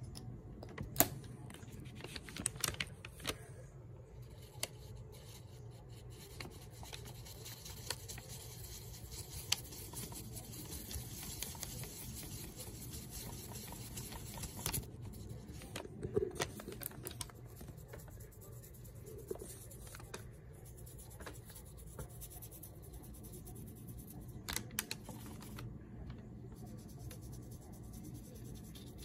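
A paintbrush working thick purple paint, first on paper and then on a bisque pottery piece: soft scraping and dabbing, with scattered light clicks and taps, the sharpest about a second in.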